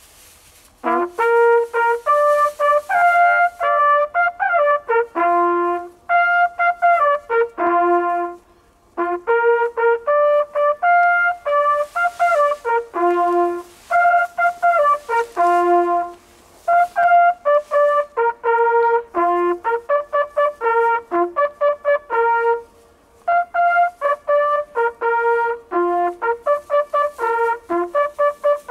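Two small coiled hunting horns blown together, playing a hunting signal over killed game: phrases of bright natural-horn notes, broken by a few short pauses.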